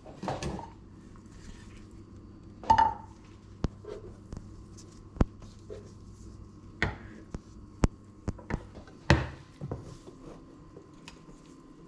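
Saucepan and eggs being handled: the metal pan set down with a ringing clank about three seconds in, eggs going into it with light knocks, and the pan set back on a glass-ceramic hob with a louder knock about nine seconds in. Smaller clicks and knocks fall in between over a faint steady hum.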